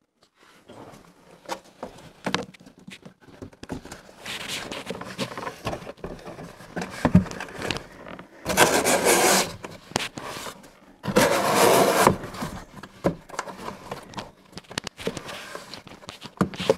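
Hands rubbing and pressing gummed paper tape down onto the cardboard inside a box: scattered scuffs and light knocks, with two longer, louder rubbing strokes about halfway through.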